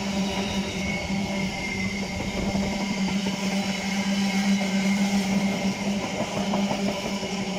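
A standing train at a railway station gives off a steady droning hum that holds one pitch throughout. A low rumble swells briefly about two to three seconds in.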